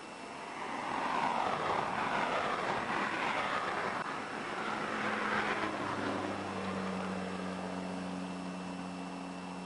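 A motor vehicle going by on the road, its tyre and engine noise swelling and then fading over about five seconds, followed by a steady low engine hum from about six seconds in.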